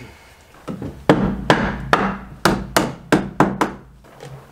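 Quick, sharp knocks on wood, about eight blows in under three seconds, as a wooden blocking piece is knocked into place between floor joists.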